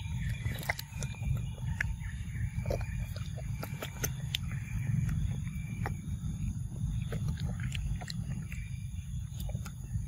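Macaque chewing papaya close to the microphone: many short wet clicks and smacks, irregular, over a steady low rumble.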